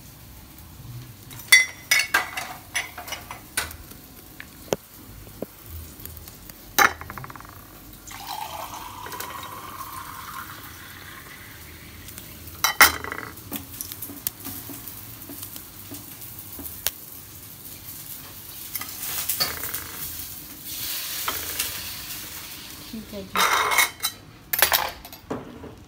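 Glassware clinking and knocking against a stainless steel sink and tiled counter in a few sharp strikes, with a clustered rattle near the end. Between them a tap runs water over a glass dish in two stretches, as the chillies are rinsed.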